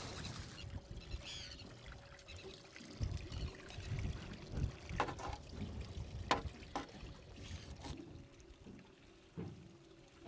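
Water sloshing and trickling against the side of a small boat, with a few sharp taps about halfway through.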